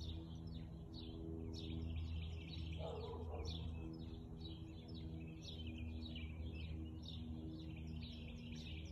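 Small birds chirping over and over, quick down-sweeping calls, over a steady low mechanical hum. A brief, faint lower sound comes about three seconds in.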